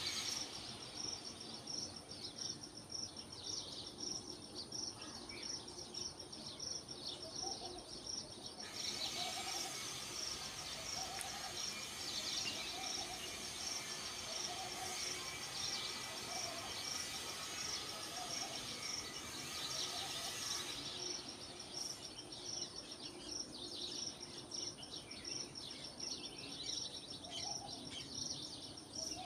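Morning bird chorus of scattered chirps over a steady, rapidly pulsing high insect drone, with a short low hooting call repeating every second or two. A broad hiss swells in for about twelve seconds in the middle.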